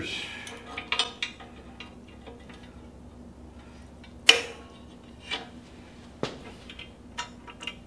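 Scattered metal clinks and clanks of steel parts and a hand clamp being handled on a metal workbench, with one sharp clank about four seconds in.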